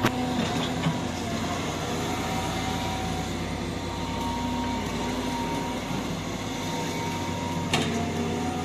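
Cat hydraulic excavator's diesel engine running steadily with a hydraulic whine as the boom and arm move, and a sharp knock near the end.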